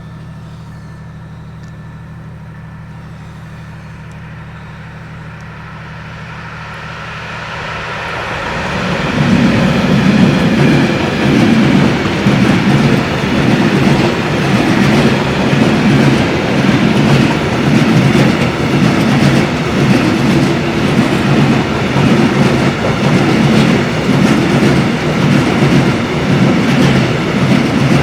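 Electric freight train passing: a steady low hum that swells from about six seconds in. From about nine seconds there is a loud, continuous rumble and rhythmic wheel clatter as loaded Eas open coal wagons roll by behind a Newag Dragon (E6ACT) locomotive.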